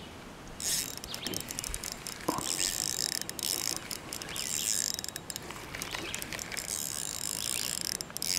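Fishing reel being cranked to retrieve line with a fish on, a steady high whirring with rapid fine clicks that starts about half a second in.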